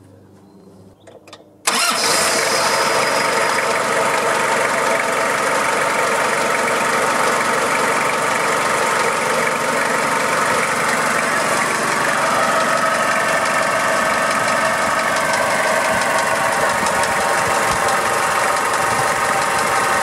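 Toyota Hilux 5L four-cylinder diesel engine idling steadily, coming in abruptly near two seconds in. Through it runs a noise in time with the engine, like a rattly bearing noise with a whizzy note, which the owner says doesn't sound correct; the timing belt and water pump have already been replaced.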